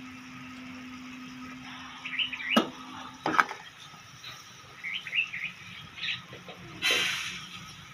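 A steel spoon stirring amla pieces in bubbling sugar syrup knocks sharply against the pan twice in the middle, with a short burst of scraping noise near the end. Birds chirp a few times.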